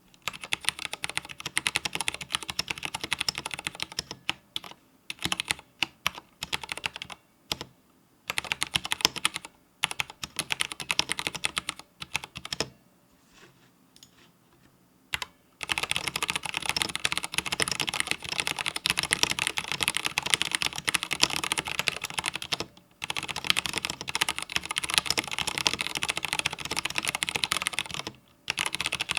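IQUNIX L80 80% wireless mechanical keyboard with Cherry MX Red switches being typed on: quick runs of key clacks, broken by a few short pauses. From about halfway through, the typing comes fast and nearly continuous.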